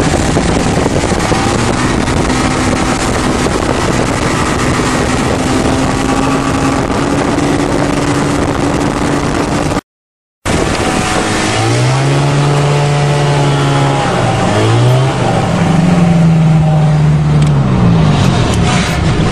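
Small propeller airplane's engine heard from inside the cabin, running steadily with its tone creeping slightly upward. After a short break about halfway, the engine's pitch falls and rises several times as the throttle is worked.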